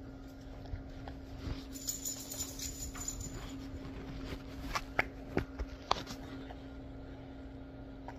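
Push Pop candy being handled and licked: a few small clicks and wet smacks about five to six seconds in, over a faint steady low hum.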